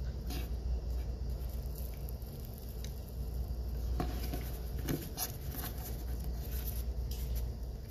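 Scattered soft clicks, taps and rustles of hands handling food, assembling a sandwich of two frosted cookies around a cupcake, over a steady low hum.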